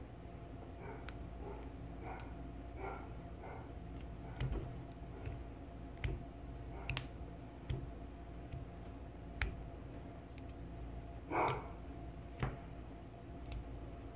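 Faint, irregular clicks and small rustles of the fine copper conductors of a stripped Cat6 cable being untwisted and straightened between the fingers, with a slightly longer rustle about 11 seconds in.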